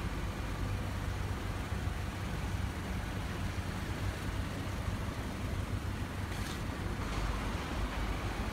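Steady low rumble and hiss of an underground parking garage's background noise, with a faint click about six and a half seconds in.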